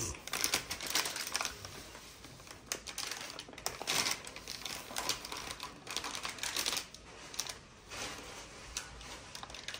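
Thin plastic bag crinkling and rustling under hands as a wrapped box is handled, in irregular crackles and sharp clicks.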